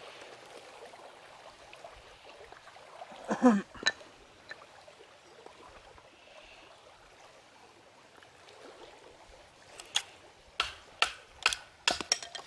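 A wooden baton knocking on the spine of a Fallkniven F1 survival knife, driving the blade down into a small stick standing on a wooden stump to split it for kindling. The knocks come as a quick run of sharp strikes, about two a second, near the end. About three seconds in there is one short, louder creak that falls in pitch, followed by a click.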